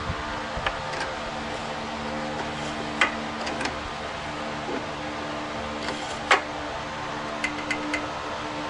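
Scattered sharp clicks and clinks of tools and metal parts being handled while opening up a small overhead-valve generator engine to check its valve lash, the loudest two about three and six seconds in, over a steady low hum.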